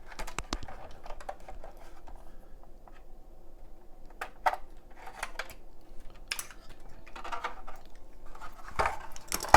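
Scattered light clicks, taps and short scrapes of small parts being handled while a PS5's antenna is taken off.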